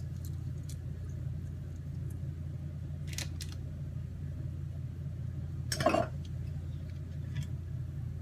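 A few light clicks and one louder knock about six seconds in, from kitchen containers and utensils being handled, over a steady low hum.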